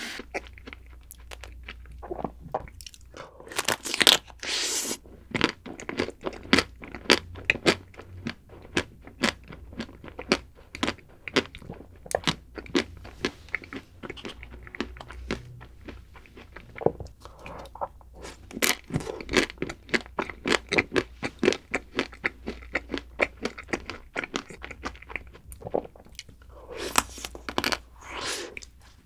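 Close-miked biting, crunching and chewing of a chocolate-and-almond-coated ice cream bar, the hard chocolate shell cracking in quick, irregular crunches. There are louder bites about four seconds in and near the end.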